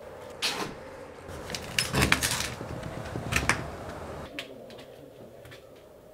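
A series of knocks and clatters, like a wooden door or cupboard being handled, loudest about two seconds in, over a steady low hum.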